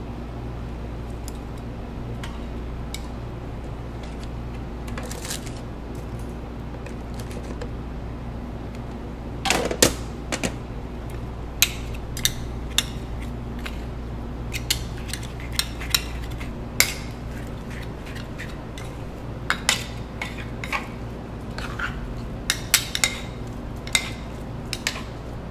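Two metal ice-cream spades clacking and scraping on a frozen granite slab as ice cream is chopped and folded with toppings, in irregular sharp clacks from about ten seconds in. A steady low hum runs underneath.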